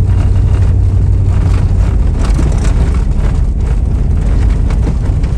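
Stock Jeep Grand Cherokee driving on a smooth dirt fire road, heard from inside the cabin: a steady low rumble of tyres and engine.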